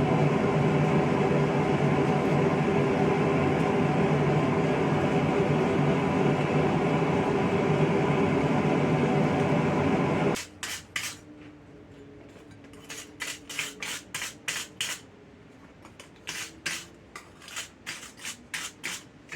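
A blacksmith's forge running with a loud, steady rushing noise and hum, which cuts off suddenly about ten seconds in. After that come a string of short, sharp clicks and light taps from handling the forged steel star.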